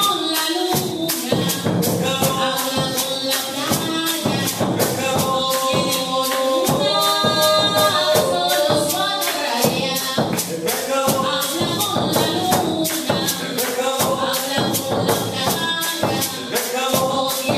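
Live Afro-Colombian music: a double-headed bass drum beaten in a quick, steady rhythm with bright percussion strikes, under voices singing.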